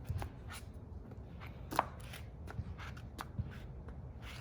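Irregular light clicks and scuffs of a person moving about and handling things, the sharpest about two seconds in, over a low steady rumble.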